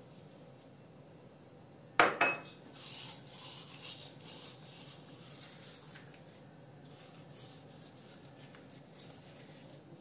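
Dried basil leaves crumbled between the hands: a crisp, dry crackling rustle, loudest just after a sharp double knock about two seconds in, then fading to faint crackles.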